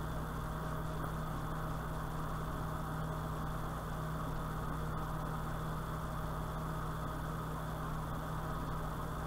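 Steady low hum with an even hiss, unchanging.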